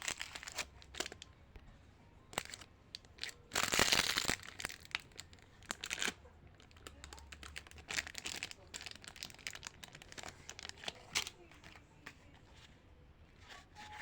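Plastic candy wrappers crinkling and crackling as they are handled and torn open. The loudest tear comes about four seconds in, among many short sharp crackles.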